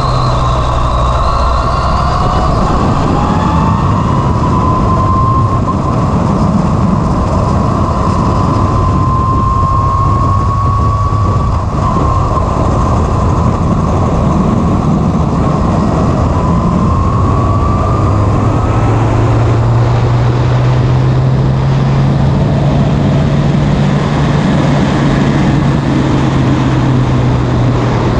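Formula Renault single-seater's engine running hard on track, its note climbing slowly about three times and dropping back between climbs as the gears change. Heavy wind and road noise from the open cockpit run under it.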